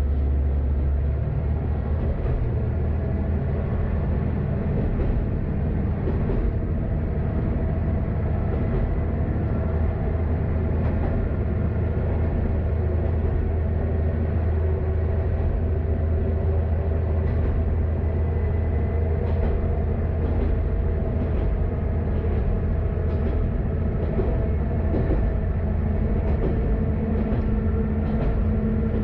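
KiHa 532 diesel railcar running along the line, its diesel engine giving a steady hum with a slight change in pitch about a second in, and scattered short clicks from the wheels on the track.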